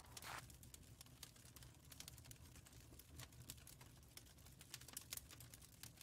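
Near silence: faint, irregular clicking over a low steady hum.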